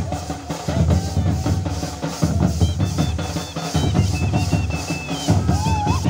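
Drum-heavy music with a strong, driving beat. A high, stepping melody joins about halfway through.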